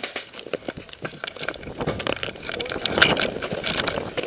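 Metal sling swivel on an airsoft AK-74M replica rattling right at the gun-mounted microphone, an irregular run of sharp clicks. It is mixed with crunching footsteps in snow as the shooter gets up and moves, growing busier about a second and a half in and densest near the middle.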